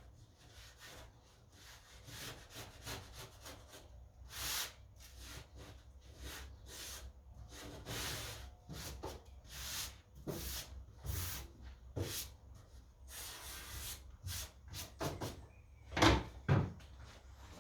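Wooden boards being handled: irregular scraping and rubbing with scattered knocks, and one louder knock near the end.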